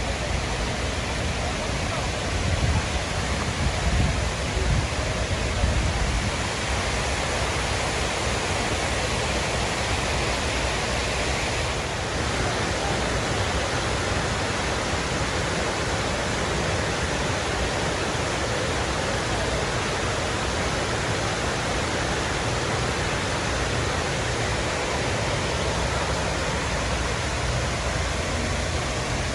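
Steady rush of the 9/11 Memorial reflecting pool's waterfalls, water sheeting down the granite walls into the pool and the central void, with a few low buffets in the first several seconds.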